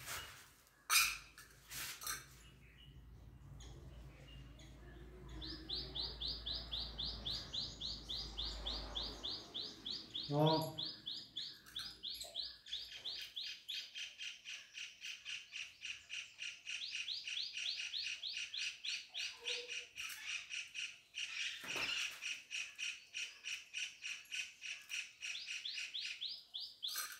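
A small bird chirping rapidly and repeatedly, about five high chirps a second, starting about five seconds in and joined about halfway through by a second, lower series of chirps. A sharp knock comes about a second in, and a short, low pitched cry near the ten-second mark.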